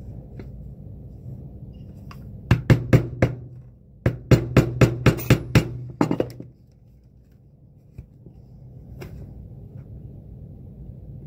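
Yellow plastic mallet striking a pronged stitching punch through a leather boot sole, punching stitch holes for hand stitching. The blows come in quick, even runs: about five a couple of seconds in, then about nine more in the middle.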